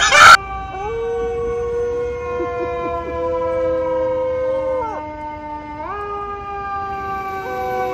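A fire-engine siren wails with long, smooth held notes, and a dog howls along with it. The notes fall away about five seconds in and rise again a second later.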